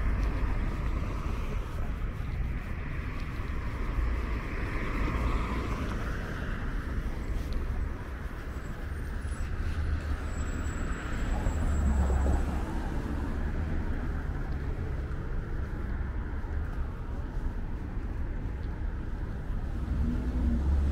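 Road traffic on a busy multi-lane street: cars passing with steady tyre and engine noise and a low rumble, swelling louder around twelve seconds in and again near the end.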